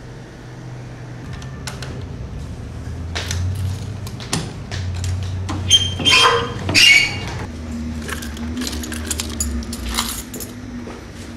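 Keys jangling and clicking against a metal post-office box door as it is unlocked and opened, the loudest jingling about six to seven seconds in, with scattered clicks before and after. A steady low hum runs underneath.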